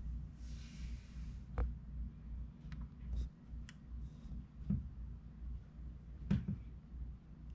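Handling noise from a handheld camera being panned: a low steady rumble with a brief soft hiss about half a second in and about six scattered light clicks and taps.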